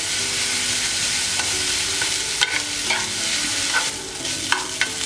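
Sliced onions with chopped green chilli and garlic sizzling in oil in a non-stick frying pan while being stirred with a plastic spatula, which scrapes and clicks against the pan a few times.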